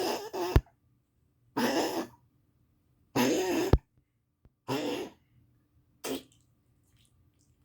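A dog coughing: five coughs about a second and a half apart, the last one short.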